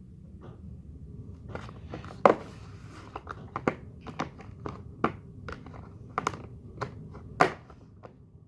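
Sticky homemade glue-and-sugar slime worked in the hands, giving irregular sharp wet clicks and smacks, about one or two a second, the loudest about two seconds in and near the end.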